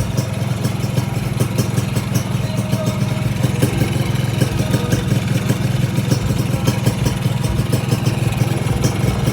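Suzuki AX100's small two-stroke single-cylinder engine idling steadily with a rapid, even popping. It is running on a carburetor whose float needle has just been re-set to cure flooding.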